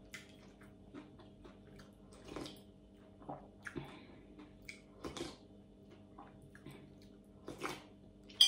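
A metal spoon scooping broth from a boiled pig stomach soup out of a bowl, with a few soft sips spread through, then a sharp clink near the end.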